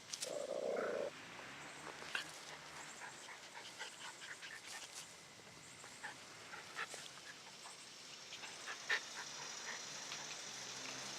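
Puppies in play: a puppy gives one short, loud growling call about a second long at the start, followed by scattered rustling and scuffling clicks.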